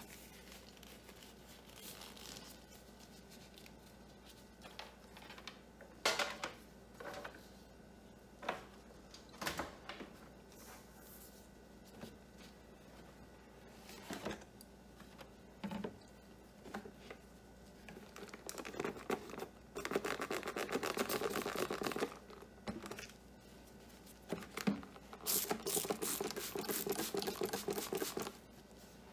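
Plastic-gloved hands rubbing a microfiber cloth over a printer's plastic casing, after scattered crinkles and clicks from handling the glove, cloth and spray bottle. The rubbing comes in two stretches of fast, even scrubbing of about three seconds each, from about two-thirds of the way in.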